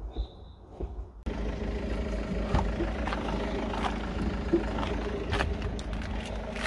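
A few faint clicks, then from about a second in a steady motor-vehicle engine running, with scattered clicks and knocks over it.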